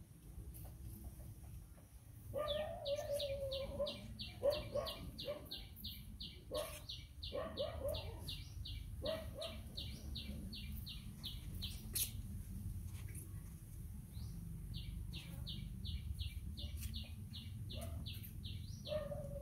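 A bird calling a fast, even string of short high chirps, about three or four a second, in two long runs with a pause between them, with a few lower, wavering calls mixed in during the first run.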